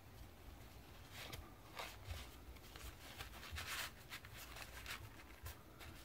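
Faint rustling and crinkling of a paper napkin as fingers pinch and fold it, in short scattered bursts over a low steady hum.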